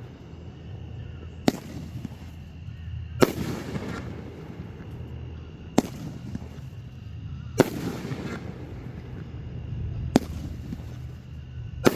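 Fireworks shells bursting, six sharp bangs roughly two seconds apart, over a steady low background rumble.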